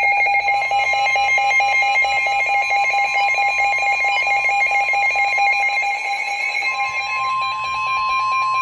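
Emergency Alert System attention signal: a loud, steady alarm tone held without a break, the alert that announces an emergency warning broadcast.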